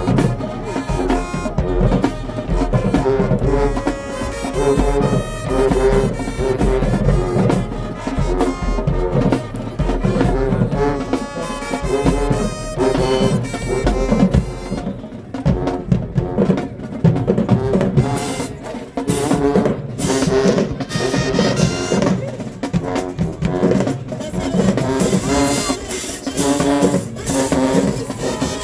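High school marching band playing a loud brass and drum number, horns over steady percussion.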